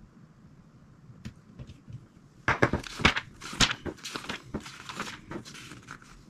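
Paper crinkling and rustling in the hands, a run of quick crackly bursts that starts about two and a half seconds in.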